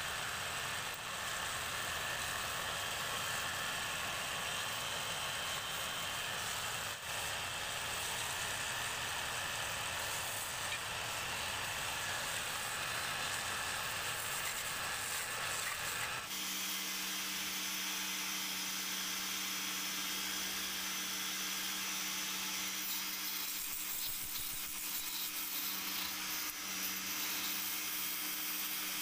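Wood lathe running with a wooden spindle turning, a hand tool cutting the spinning wood in a steady hiss. About sixteen seconds in, the sound changes abruptly and a steady low hum comes in.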